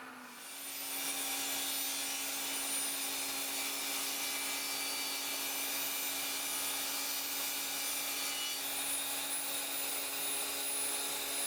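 Powermatic 15-inch thickness planer running with a steady hum; about a second in the note thickens and gets louder as the board enters the cutterhead and is planed steadily.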